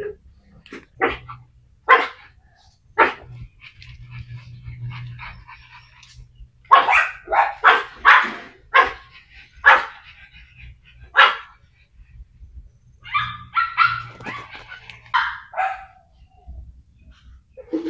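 Dogs barking: three single barks about a second apart, then a run of barks, then a quicker cluster near the end.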